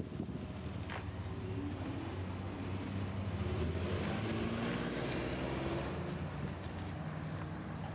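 Ford Explorer SUV engine running as the vehicle pulls away, its note rising as it accelerates.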